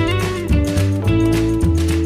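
Music with guitar over a pulsing bass line and a steady beat.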